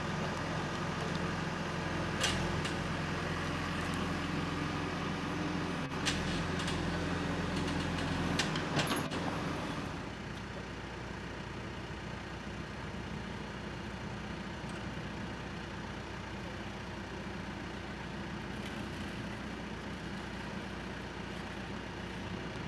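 Diesel engine of a John Deere 310SG backhoe loader running, with a few sharp knocks in the first nine seconds. About ten seconds in, the engine note drops and it runs lower and steadier.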